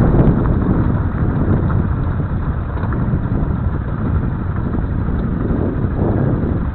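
Honda CRF250L's single-cylinder engine running as the bike rides over a loose gravel trail, a steady dense rumble mixed with wind on the microphone.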